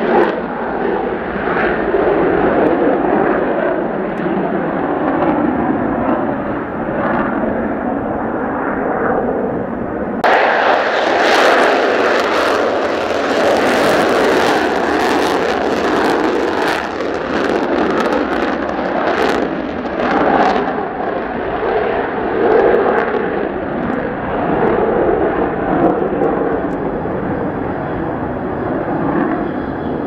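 Mitsubishi F-2 fighters' single General Electric F110 turbofans running at full afterburner on take-off, a heavy jet roar; about ten seconds in the sound jumps to a brighter, harsher jet noise with crackling from the exhaust as the next aircraft rolls and lifts off. Wind buffets the microphone underneath.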